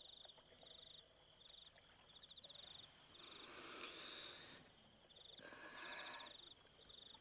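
Crickets chirping faintly in short pulsed trills, repeating about once a second at one steady pitch. Two soft swells of hissing noise rise and fade near the middle and later on.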